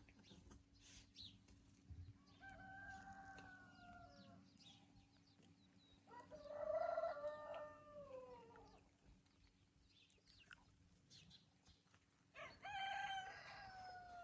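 Rooster crowing three times, each crow about two seconds long, the middle one loudest.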